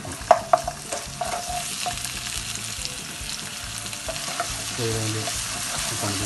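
Onions and ginger-garlic paste sizzling in hot oil in a nonstick pan while being stirred with a wooden spatula. A couple of sharp knocks of the spatula against the pan stand out about half a second in.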